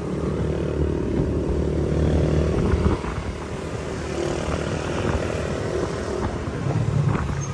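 Motorcycle engine running under way, heard from the bike itself. It eases off briefly about three seconds in, then runs steadily again.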